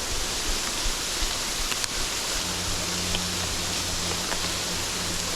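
Waterfall rushing in a steady, even roar of falling water. About halfway through a faint low steady hum joins underneath, with a few faint clicks.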